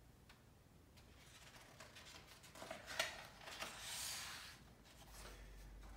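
A page of a hardcover picture book being turned by hand: faint paper rustling with a small tap about three seconds in.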